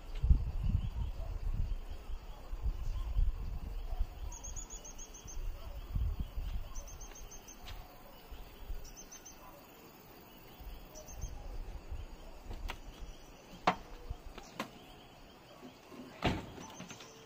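Rural outdoor ambience: insects chirping in short, high-pitched trills, over a low, gusty rumble in the first half. Two sharp knocks come near the end.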